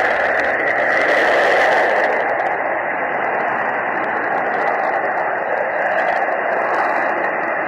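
Panavia Tornado's twin RB199 turbofans in full reheat on a take-off run: a loud, steady roar of jet noise that eases slightly about two seconds in.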